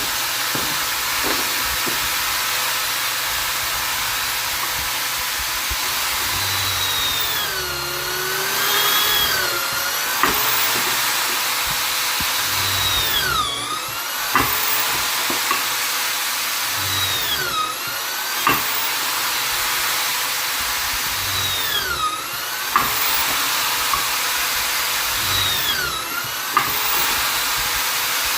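Vonder electric drill/driver running steadily on wood, its motor whine dipping in pitch and recovering every three to four seconds, with an occasional sharp click.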